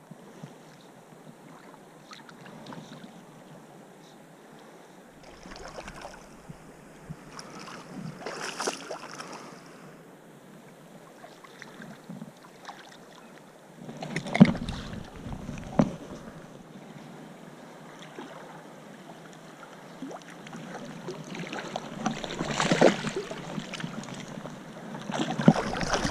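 River water splashing and swirling as a hooked trout fights at the surface, with irregular louder splashes and a few knocks from the fishing gear close to the microphone.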